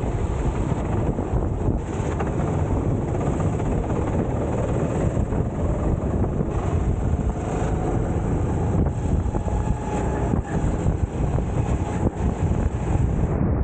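Onboard sound of a racing kart's engine running under load, heavily mixed with wind buffeting on the camera microphone, steady throughout.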